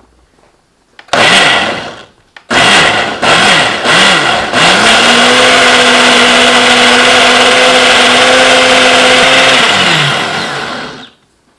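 Countertop blender pureeing boiled chickpeas and kiwi with chickpea cooking water. It is pulsed in four short bursts, with the motor pitch rising and falling each time, then runs steadily for about five seconds before winding down and stopping near the end.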